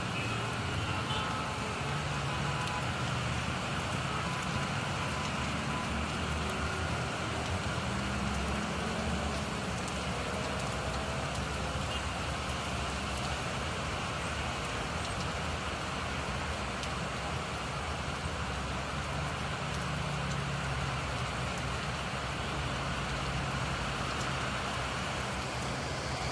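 Steady rain hiss over busy city traffic: car engines running and tyres on wet roads.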